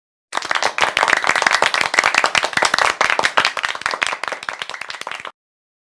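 Applause: many hands clapping in a dense patter, easing off slightly before it cuts off abruptly about five seconds in.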